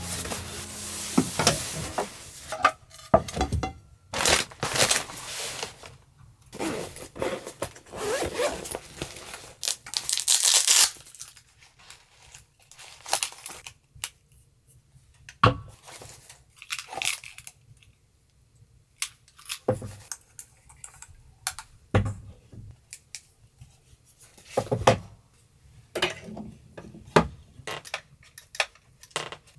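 Fabric rustling as a nylon padded jacket is handled and hung up, followed by scattered clicks and knocks of small objects being picked up and set down.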